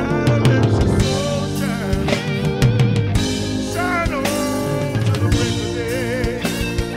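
Blues-rock band music: a lead electric guitar with bent, wavering notes over drums and bass.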